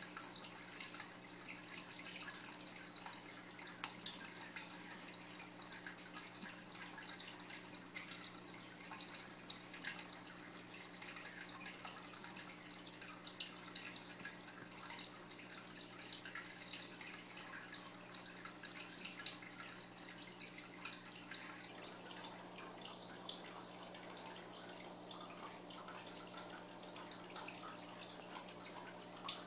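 Faint water trickling and dripping in an aquarium, with many small drips, over a steady low electrical hum from the tank's equipment.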